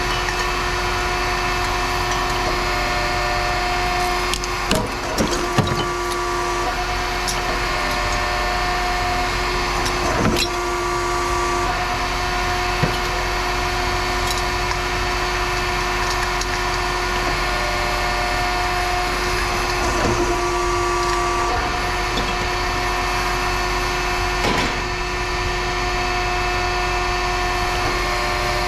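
Metal guillotine shear running with a steady hum made of several fixed tones. A few sharp metallic clanks break in as scrap is cut or dropped: three close together about five seconds in, then single ones spread through the rest.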